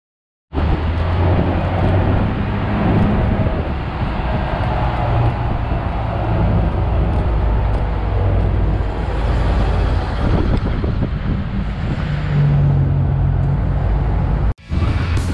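Engine and road noise of an open-sided off-road tour jeep driving along a paved street, heard from inside the open cab: a steady low engine hum under a rush of tyre and air noise. It starts about half a second in and cuts out for a moment near the end.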